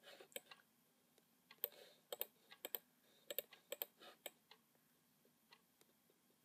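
Irregular sharp clicks of computer input (mouse buttons and keys), several in quick pairs, thinning out to almost nothing over the last two seconds.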